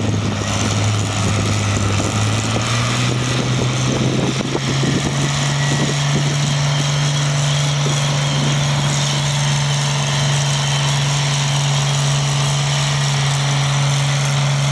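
Farm tractor engine pulling a weight-transfer sled, running hard under load. Its pitch climbs over the first few seconds, then holds steady.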